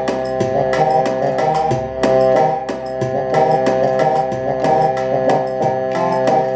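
Korg Pa600/700 arranger keyboard playing a held chord over a quick, steady drum and hand-percussion rhythm.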